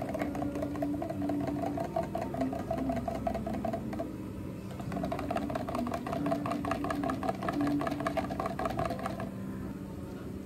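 Long metal spoon stirring chocolate sauce and espresso in a tall plastic cup, ticking rapidly against the cup wall. The stirring stops about four seconds in, starts again in a second cup a second later, and stops near the end.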